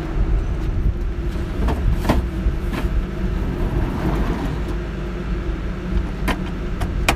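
Large generator running steadily with a low hum, with a few light clicks and clinks of tools being packed away.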